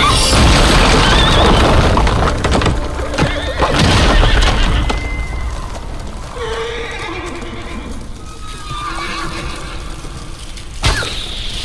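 A horse neighing, with hoofbeats, over a dramatic background score.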